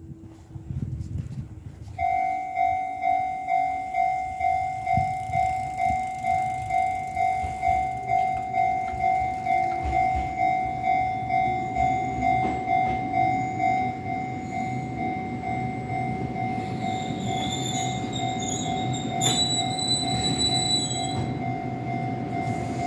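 Level-crossing warning bell of a Japanese railway crossing, starting about two seconds in with a ringing electronic clang repeated about twice a second. From about ten seconds in, an Enoshima Electric Railway train rumbles up and over the crossing under the bell, with brief high squeals near the end.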